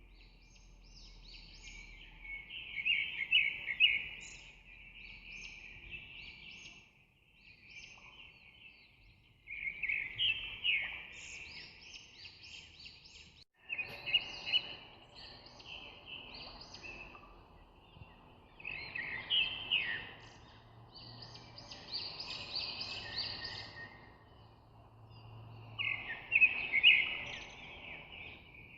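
Birds chirping and twittering in rapid high bursts that come back every several seconds, with quieter chirps between them over a faint background hum.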